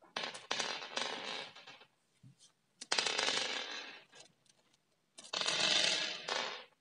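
Kinetic sand being cut with a knife: three gritty, crackling slicing strokes, each about a second and a half long, with short pauses between them.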